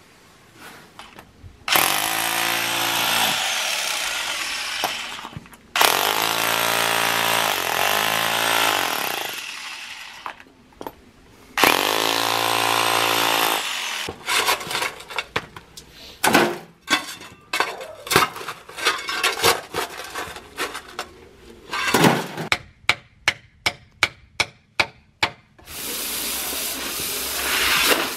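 Electric rotary hammer drill boring into the ground, run in three bursts of a few seconds each, its motor spinning up in pitch at the start of each. After them come a series of separate knocks and then a quick run of sharp clicks, about four a second.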